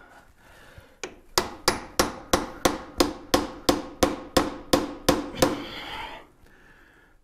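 A hammer striking metal at the rear hub of a 1914 Studebaker, in a quick even run of about fourteen ringing blows, roughly three a second, followed by a short scrape. The blows are working loose a part stuck on with RTV sealant, which is coming free slowly.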